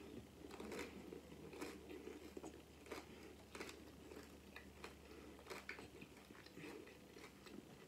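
Faint, close-miked chewing of a taco, with irregular small crunches and wet mouth clicks.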